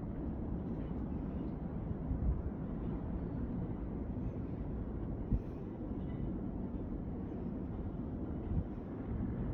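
Steady low outdoor rumble with three short, dull thumps spread through it.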